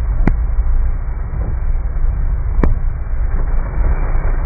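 Steady low rumble of a car driving on a wet road in heavy rain, heard from inside the cabin, with an even hiss of rain and spray over it. Two sharp clicks cut through, one just after the start and one a little past halfway.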